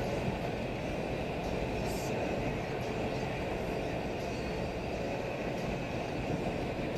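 Steady rolling noise inside a truck cab at highway speed: engine, tyres and wind blended into one even rumble with a faint steady hum.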